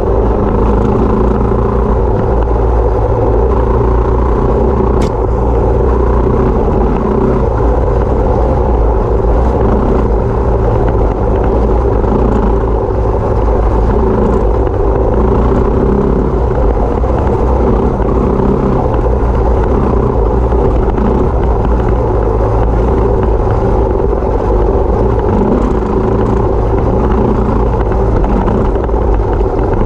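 Yamaha WR250 dirt bike's engine running at a steady pitch and level, over a constant low rumble.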